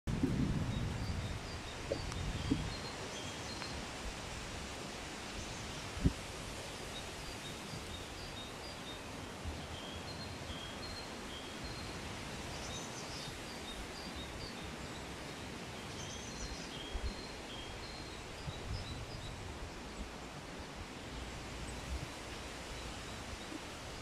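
Outdoor garden ambience: a steady hiss with a small bird chirping repeatedly in short high notes. Wind buffets the microphone in the first couple of seconds, and there is a single sharp tap about six seconds in.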